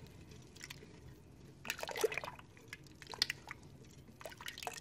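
Warm milk being stirred with a plastic spoon in a stainless steel pot, mixing in yogurt starter: soft sloshing and dripping in a few short spells.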